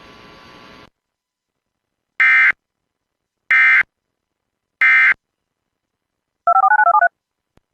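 Emergency Alert System end-of-message code: three identical short bursts of SAME data tones, about 1.3 seconds apart, marking the end of the alert. Faint static cuts off just before them, and near the end a short beep warbles between two pitches.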